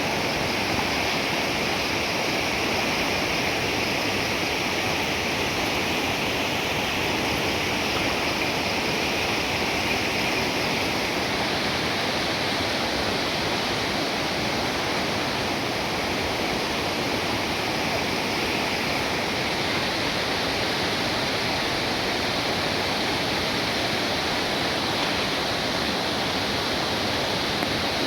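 Fast-flowing river water rushing in a steady, unbroken roar.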